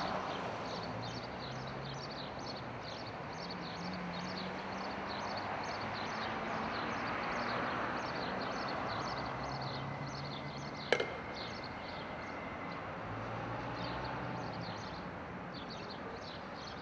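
Street ambience: a low, steady traffic hum under small birds chirping over and over, several chirps a second. About eleven seconds in comes a single sharp knock, the loudest sound.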